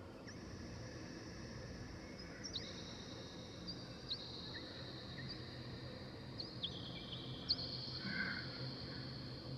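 Faint high chime tones, struck one after another at different pitches about every second or so, each ringing on steadily for several seconds.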